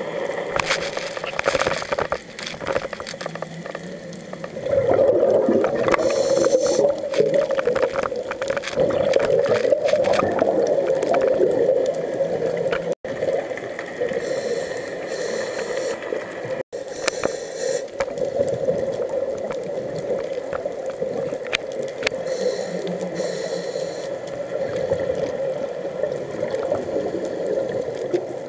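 Underwater sound of scuba diving: a diver breathing through a regulator, with roughly one-second hissing breaths and bursts of exhaled bubbles, over a steady drone and scattered crackle. The sound cuts out for an instant twice.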